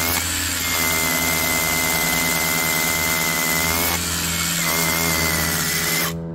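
DCK KRH20V-26 brushless cordless SDS rotary hammer hammer-drilling into a layered stone ledge, running steadily with a high whine. It eases briefly twice and stops abruptly near the end as the bit is pulled out.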